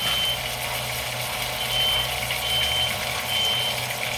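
Smoke alarm beeping in short, repeated high-pitched beeps, set off by cooking smoke. The alarm is described as very sensitive.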